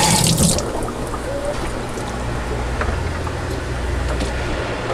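Water tap running as hands are rinsed under it, shut off about half a second in. After that a steady low hum remains, with a few faint clicks.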